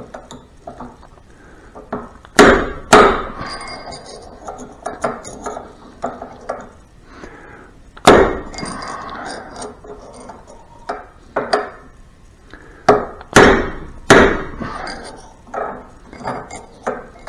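Hammer striking a steel punch to drive an inner bearing out of a Harley 5-speed transmission drive gear held in a vise. Sharp metallic blows with a short ring: two heavy ones a couple of seconds in, one about eight seconds in, and two more a few seconds before the end, with lighter taps and clinks between. The bearing is almost out.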